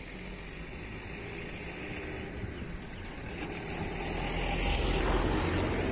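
A motor vehicle passing by on the road, its rumble building to a peak about five seconds in and then easing off.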